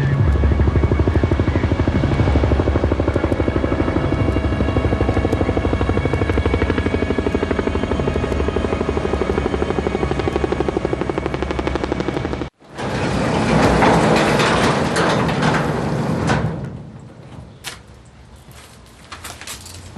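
Helicopter rotor chopping steadily in a fast, even pulse, cut off abruptly about twelve seconds in. A few seconds of loud rushing noise follow, then a quieter stretch with scattered clicks.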